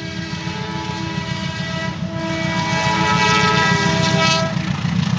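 Horn of a CC201 diesel-electric locomotive blowing as the train approaches, in two long blasts, the second longer, over a low rumble that grows louder.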